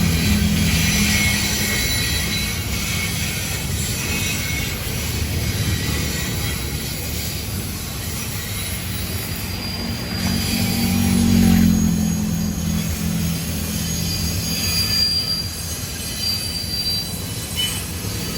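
Intermodal freight train rolling past, with a steady low rumble from the cars on the rails and faint, intermittent high-pitched wheel squeal. The rumble swells briefly about eleven seconds in.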